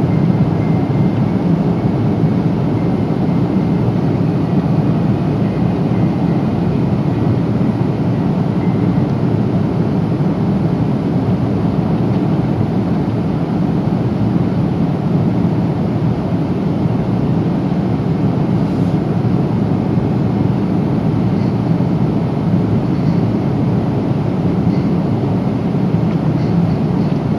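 Steady cabin noise inside a Boeing 777-300 in cruise: an even, low rush of engine and airflow noise with no breaks.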